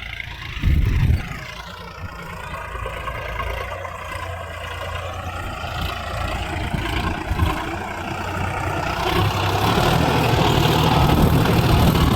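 Sonalika tractor engine running under load while pulling a reversible plough, its pitch wavering up and down, with a brief loud knock about a second in and the engine growing louder over the last few seconds.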